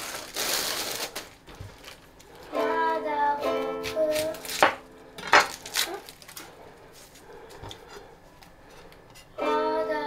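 Ukulele chords strummed in two runs, one about two and a half seconds in and another starting just before the end. A plastic bag rustles at the start, and a few sharp knocks come in the middle.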